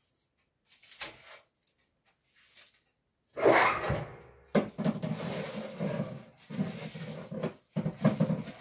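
A baking tray being put into a kitchen oven: a sudden clatter about a third of the way in, then several seconds of scraping and knocking as the tray slides in, with a few sharp clicks near the end.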